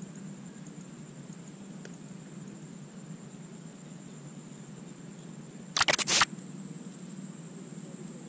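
Handling noise from the kayak-mounted camera: a brief cluster of loud clicks and knocks about six seconds in as the camera is shifted, over a steady low hum and a thin high whine.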